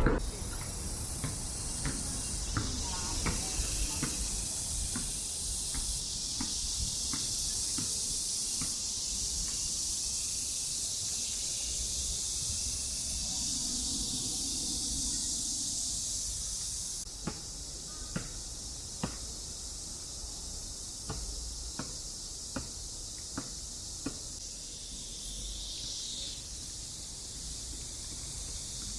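High, steady shrill buzzing of insects in the trees, swelling and easing in steps, with sharp taps scattered throughout.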